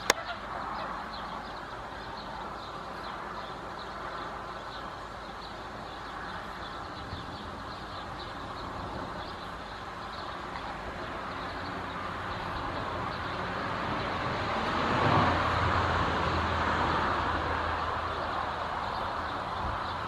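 A motor vehicle passing: a steady rushing that builds slowly to its loudest about fifteen seconds in, with a low engine hum for a few seconds around the peak.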